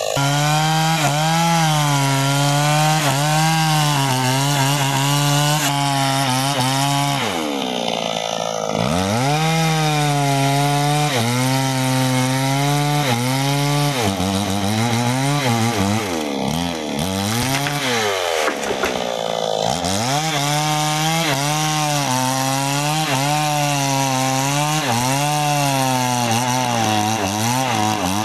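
New West 628 two-stroke chainsaw cutting sengon wood at high revs. Its engine note wavers as the chain bites and bogs under load, and a few times the engine drops off and revs back up.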